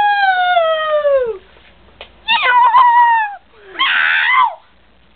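Children imitating animals with their voices: three meow-like calls, the first long and sliding down in pitch, the second shorter and wavering, the third rougher and breathier.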